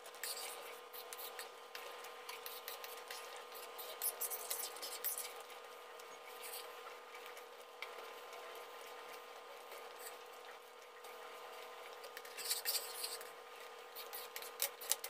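A ladle stirring thick, simmering kheer in a pan, with wet squelching and scraping clicks against the pan in several bursts, over a steady hum.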